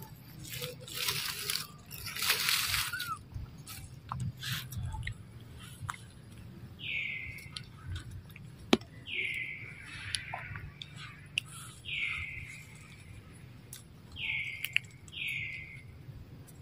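Five short, high chirps, each falling in pitch, come from about seven seconds in, over scattered clicks. Rustling noises come in the first few seconds.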